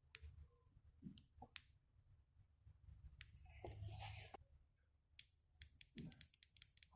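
Faint clicks of a Feiyu Pocket stabilized camera's button being pressed and the camera handled, with a brief rustle midway and a quick run of clicks near the end, as the camera fails to turn on.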